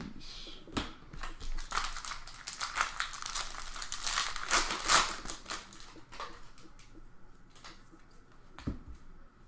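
A Bowman Draft trading-card pack wrapper being torn open and crinkled, with dense rustling loudest in the first five seconds. Fainter rustles and ticks of cards being handled follow.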